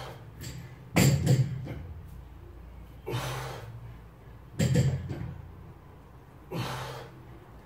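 A lifter's forceful breaths and exhales during sumo deadlift reps with a 108 kg barbell, one every couple of seconds. The bumper-plated bar knocks down on the floor twice, about a second in and just before five seconds in; these are the loudest sounds.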